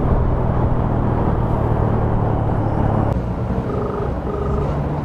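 Motorcycle engine running with wind and road noise while riding; the engine eases off about three seconds in as the bike slows. Near the end come two short beeps.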